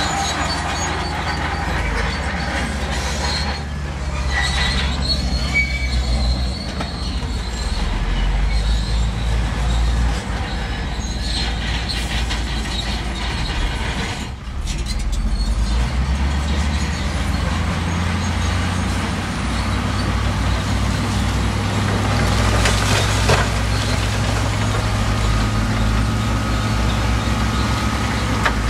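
Crawler bulldozer at work: a steady diesel engine drone, with the steel tracks clanking and squealing and scattered knocks of rock.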